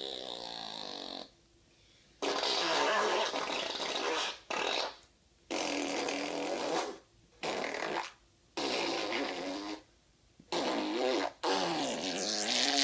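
A run of about eight drawn-out farting noises, each lasting one to two seconds and wavering in pitch, with short gaps between them.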